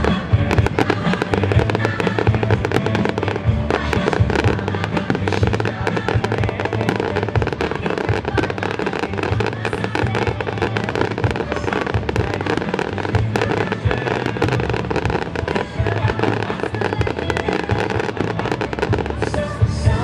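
Aerial fireworks going off in a dense, continuous barrage of rapid cracks and bangs, with the display's accompanying music playing loudly underneath.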